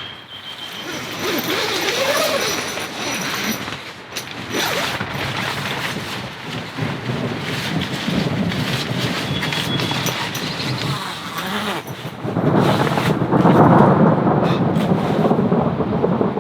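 Rain falling, with scattered knocks and handling noise. A long, low rumble of thunder rises about three-quarters of the way through and lasts to the end.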